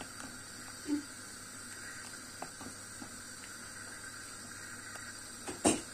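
Steel pot of salted water boiling with bulgur dumplings in it, a steady hiss, while a wooden spoon stirs them. A few light clicks, a dull bump about a second in, and a sharper knock of the spoon against the pot near the end.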